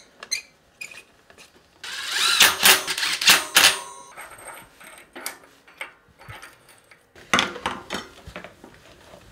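Metal clicking and clattering of bicycle parts and a hand screwdriver being worked: a derailleur, rear wheel and disc-rotor bolts being fitted. It comes in two spells of rapid clicks, the first about two seconds in and the second near the end.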